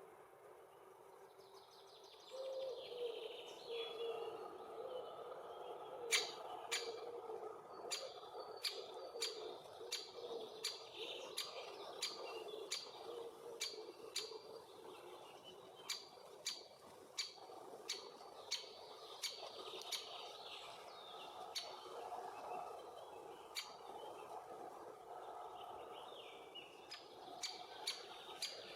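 Great spotted woodpecker giving sharp, short 'kik' calls over and over, roughly one to two a second, starting about six seconds in. Underneath runs a steady buzzing hum.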